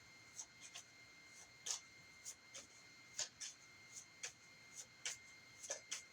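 Tarot cards being handled and laid out: a dozen or so faint, irregular ticks and light rustles.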